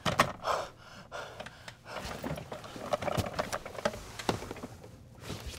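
A man panting and gasping in fright, with scattered small clicks and knocks of movement.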